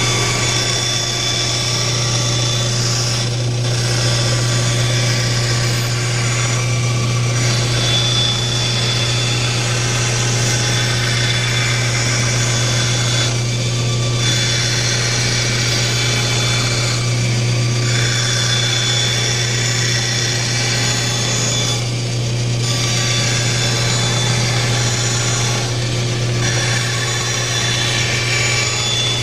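Bandsaw running with a steady motor hum while its blade cuts a circle in plywood, the board turned on a pivot jig. The cutting noise eases off briefly every few seconds and picks up again.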